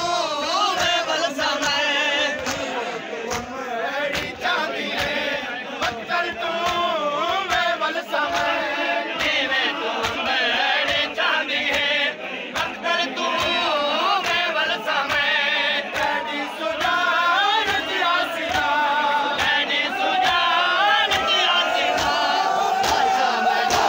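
A crowd of men chanting a noha together, with a steady beat of sharp hand slaps from matam, the ritual chest-beating of Shia mourning.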